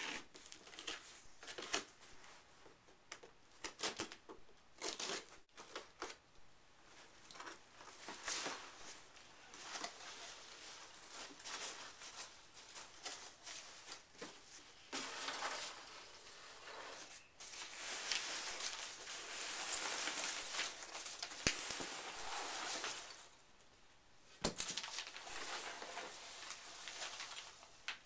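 A cardboard box being opened: a blade slits the packing tape and the flaps scrape and tear, with many short scrapes and clicks. About fifteen seconds in comes a long rustle of foam packing peanuts spilling out of the box. After a short lull near the end there is more rustling.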